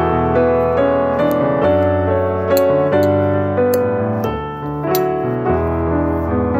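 Background piano music: a run of piano notes over held low chords that change about once a second.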